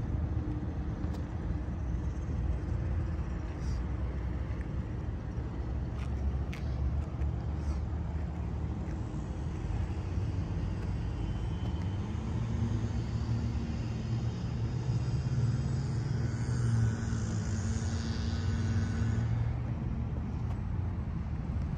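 Outdoor street ambience: a steady low rumble of road traffic, with a vehicle engine passing in the second half. A few faint clicks come about six to seven seconds in.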